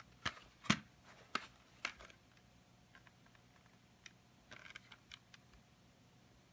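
A plastic CD jewel case being handled: a few sharp clicks and knocks in the first two seconds, then softer ticks and a brief scuffle around five seconds in.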